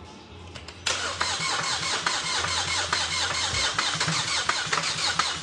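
Car engine starting about a second in and running with a rattle that sounds like engine knock but comes from the timing chain.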